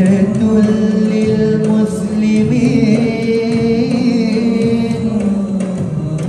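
A solo voice chanting a long melodic phrase of Quranic recitation (tilawah) with held notes and a wavering, ornamented passage in the middle.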